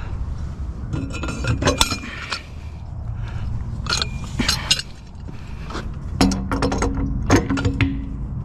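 Irregular metal clinks and clanks of a wrench and cheater-bar pipe working a tight fastener loose on a scrap water heater. A steady low hum joins in about six seconds in.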